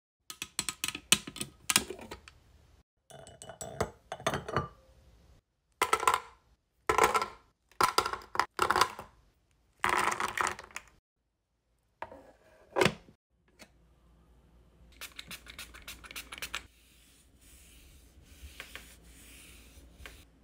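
Long fingernails tapping quickly on a wax warmer's pot, then pieces of hard wax clattering and rattling in its metal insert in several bursts. Softer rubbing and scratching sounds follow near the end.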